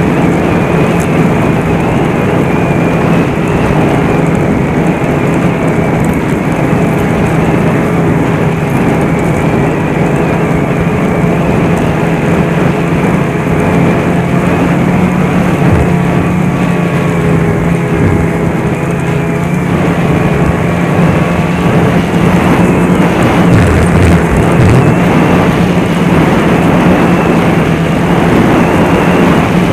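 Snowmobile running at a steady cruising speed, its engine note holding level along with the rush of the track and air.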